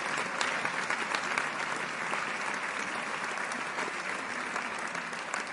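Theatre audience applauding, a steady dense patter of many hands clapping.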